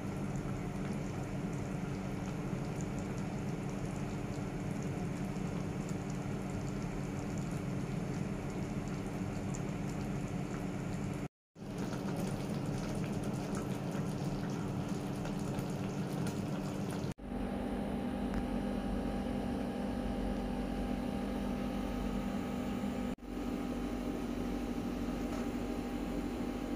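Cream sauce simmering in a frying pan over a steady hum. The sound drops out briefly about eleven seconds in, and the hum shifts after a short dip about seventeen seconds in.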